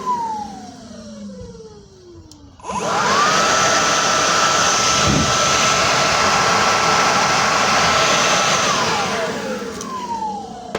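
Leaf blower winding down with a falling whine, then switched back on about three seconds in, running at full speed with a steady whine and rush of air for about six seconds, and released again to wind down near the end.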